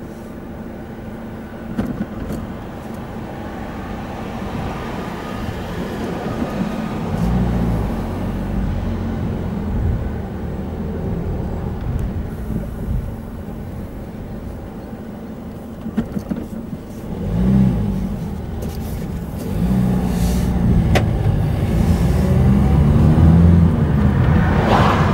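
Car engine and road noise, swelling a few times and growing louder and stronger over the last few seconds as a car drives off along the road.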